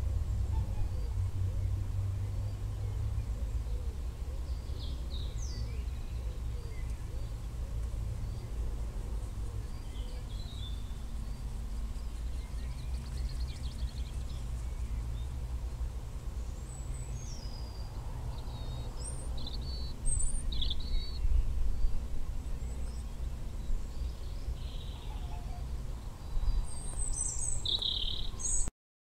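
Songbirds chirping and calling here and there, more often in the second half, over a steady low rumble. The sound cuts off suddenly near the end.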